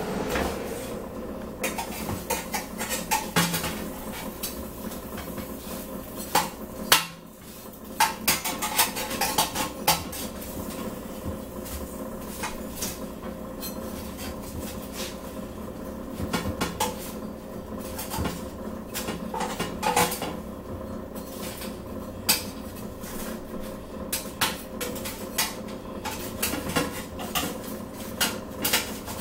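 Metal utensil clinking and scraping against a dish in many irregular clicks, the loudest about seven seconds in, over a steady low hum.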